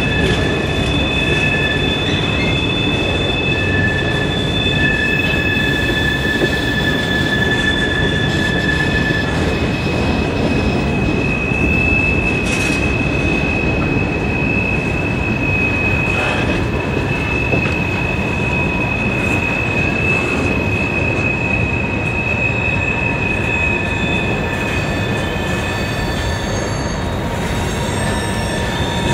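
Freight cars of a manifest train rolling past on a curve: a steady rumble of wheels on rail with high-pitched flange squeal from wheels grinding against the rail. Several squealing tones are held at once; two drop out about a third of the way through, and the strongest fades near the end.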